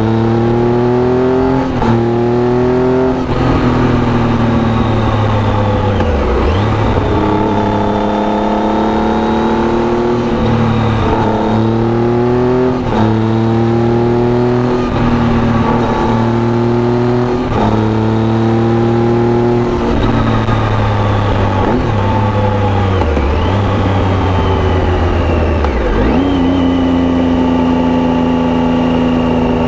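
Triumph Tiger 800's inline three-cylinder engine, breathing through an aftermarket Arrow exhaust, pulling hard through the gears while the bike is ridden. Its pitch climbs over and over, breaking at each upshift, and drops away a few times as the throttle closes, with a steady haze of wind noise throughout.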